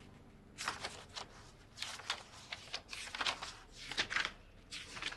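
Paper rustling as the stiff white pages of an album are turned and handled, in a series of short swishes.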